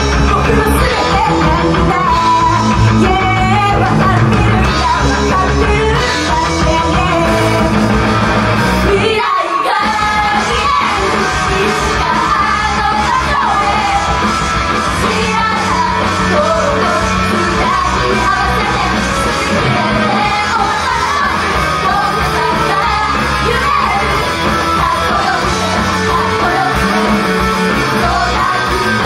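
Female idol group singing a punk-rock song live into microphones over loud rock music, with shouted parts. The music drops out briefly about nine seconds in.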